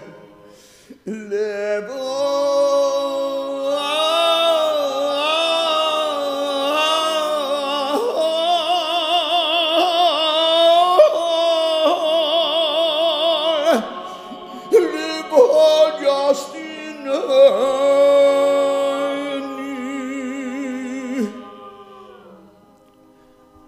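A cantor's solo male voice chanting hazzanut, long melismatic held notes with strong vibrato, fading out near the end.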